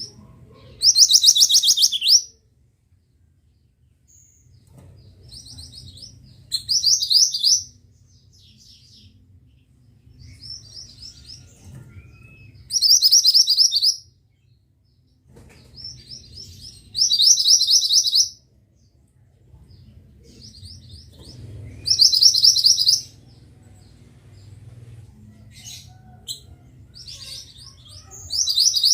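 A mantenan songbird singing the same short, fast trilled high phrase over and over, about one every four to five seconds, with faint softer chirps between phrases and a low hum underneath.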